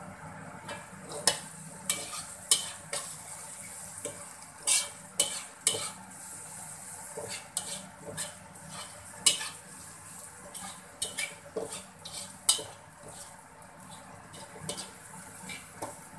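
A metal spatula stir-frying in a metal wok, scraping and clanking against the pan in irregular strokes, over a steady sizzle of food frying in oil.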